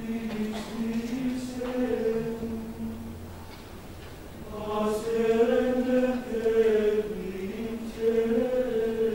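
Men's choir singing Gregorian chant in unison, in slow, held notes. The singing grows softer a couple of seconds in, then swells again about halfway through.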